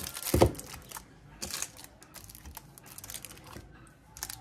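Clear plastic bags crinkling as the parts in them are handled and moved about, with a sharp knock about half a second in and a few light clicks near the end.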